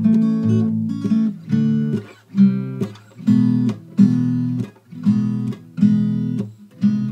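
Background music: an acoustic guitar strumming chords in a steady rhythm, about one strum every two-thirds of a second, with no voice.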